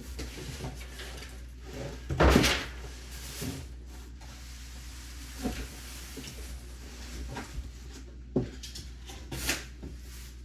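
A new lightweight black sink knocking and bumping against the countertop as it is lowered and shifted into the cutout for a dry fit. The loudest thump comes about two seconds in, followed by several lighter knocks.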